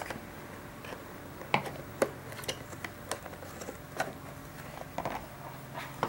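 Hands working at the stiff packaging of a PlayStation 3 Blu-ray remote, giving scattered sharp clicks and crackles roughly every half second to second. A faint low hum runs underneath.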